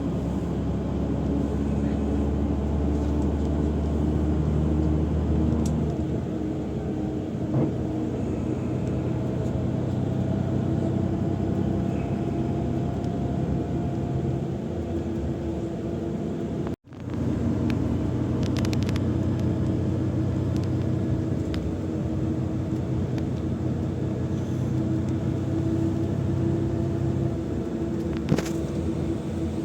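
Steady low hum of a running vehicle engine, with a few faint clicks. The sound cuts out abruptly for an instant a little past halfway and resumes.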